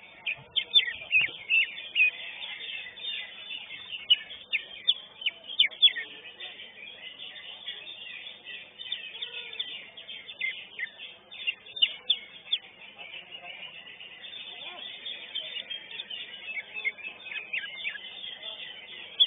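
Green leafbird (cucak hijau) singing a fast, near-continuous run of short, sharp chirps and whistled notes, densest in the first few seconds and again near the end.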